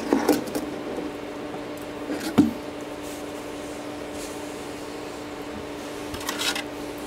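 Parts being handled and set into a cardboard box: rustling at the start, a single knock about two and a half seconds in, and another short rustle near the end, over a steady hum.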